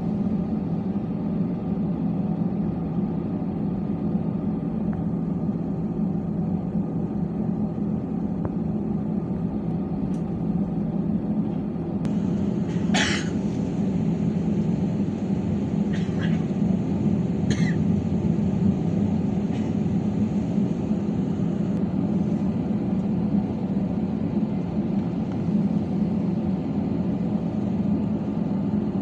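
Steady low drone inside an Airbus A320-216 cabin, from its CFM56 engines and air conditioning. A few brief, sharp sounds break in near the middle.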